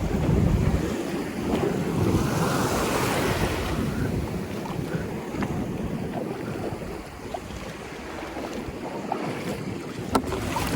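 Wind buffeting a chest-mounted camera's microphone over the wash of waves on open water, heaviest in the first few seconds and easing later, with a sharp knock near the end.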